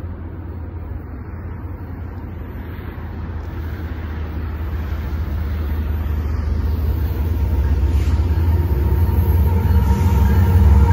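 Union Pacific SD60 diesel locomotive's two-stroke EMD 16-710 V16 engine approaching with its train: a low, steady rumble that grows steadily louder as it nears.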